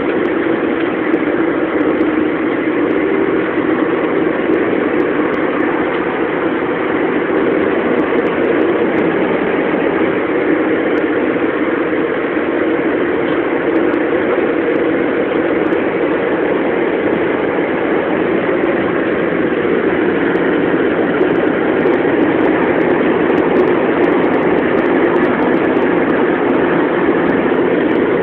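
Car driving at a steady pace: a constant mix of engine and tyre-on-road noise.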